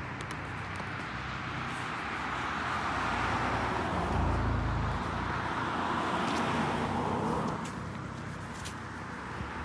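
Road traffic: a passing car's tyre noise swells and then fades about three-quarters of the way through, with a brief low rumble near the middle.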